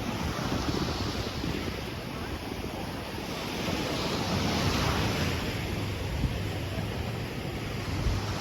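Sea surf washing onto the beach, with wind buffeting the microphone. The noise swells louder for a couple of seconds around the middle.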